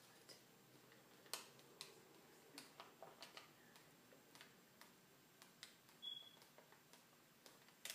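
Near silence with faint, scattered clicks and light rustles of a paper receipt handled between the fingers.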